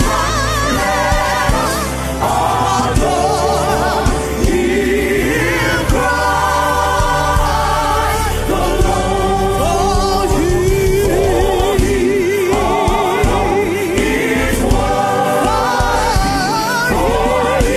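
Gospel choir singing a worship song, with held, wavering sung notes over a band accompaniment with a steady bass.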